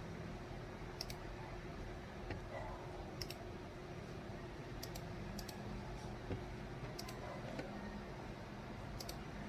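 Scattered sharp clicks from working a computer's mouse and keys, about six of them, several in quick pairs, over a steady low hum.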